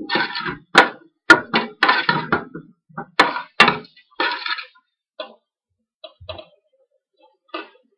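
Long-handled metal spoon clinking and scraping against a stainless steel pot while stirring chopped tomatoes and onions. Sharp clinks come several times in the first four seconds, then only a few faint taps.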